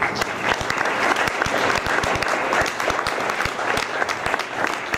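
An audience applauding, many people clapping steadily.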